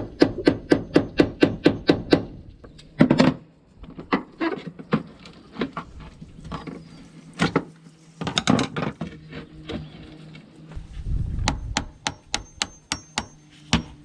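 Hammer driving a chisel under an old boat deck hatch to pry it off: a fast even run of sharp blows, about five a second, then scattered and bunched blows, and another quick run of lighter blows near the end.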